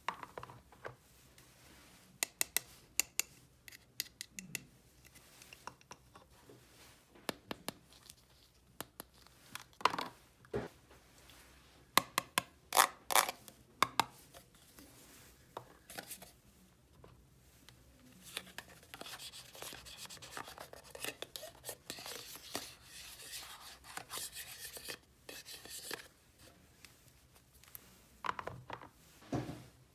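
Hands handling small plastic toys and packaging: scattered clicks and taps, then a stretch of scratchy rubbing and scraping from about two-thirds of the way in.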